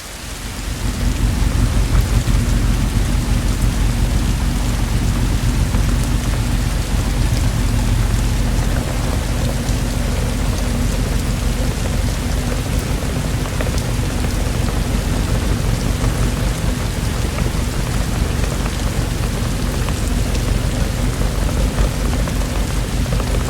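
Steady heavy rain with a continuous low rumble of thunder underneath, fading in over the first second or two.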